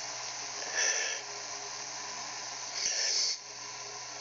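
A man breathing close to a phone's microphone: two short, loud, hissing breaths about two seconds apart, over a steady low hum.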